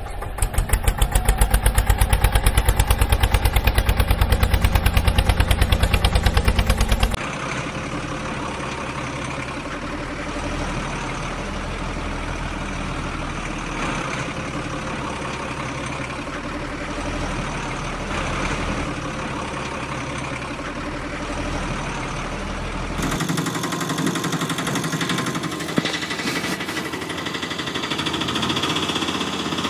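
Engine sound effects laid over the picture. For about the first seven seconds an engine runs with a rapid, even pulsing beat. It then changes to a steadier engine running, and changes again to a brighter engine sound about 23 seconds in.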